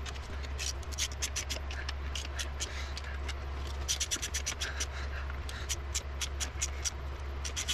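Hand ratchet clicking in irregular quick runs as a socket backs out the bolts of a Dana 60's front locking hub, with a steady low hum underneath.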